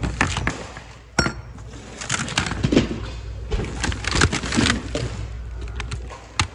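Hands rummaging through a bin of mixed secondhand goods: plastic crinkling and hard objects and wire hangers clattering and knocking together, with a sharp ringing clink about a second in.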